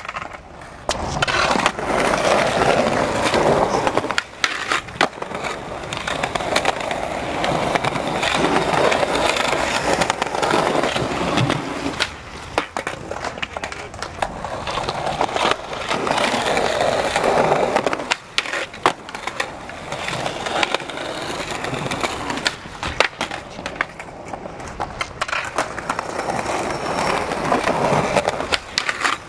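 Skateboard wheels rolling over smooth plaza pavement in long stretches, broken by sharp clacks of the board popping and landing.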